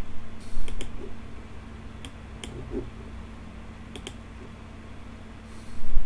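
A few sharp computer mouse clicks, some in quick pairs, over a steady low electrical hum, with a short rush of noise near the end.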